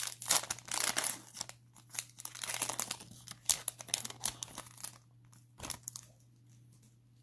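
Cellophane wrapper of a Panini Mosaic cello pack of football cards crinkling and tearing as it is ripped open by hand, dying down after about five seconds.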